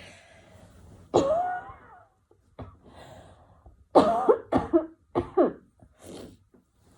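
A person coughing repeatedly, a cough from the asthma and sore throat they say they have: one loud cough about a second in, then a run of several coughs from about four seconds in.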